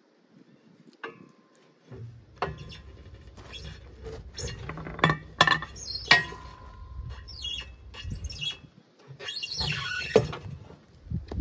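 Metal tire levers clinking against a motorcycle wheel rim while the rubber tire bead squeaks as it is worked over the rim, with a ringing metal clink about halfway through.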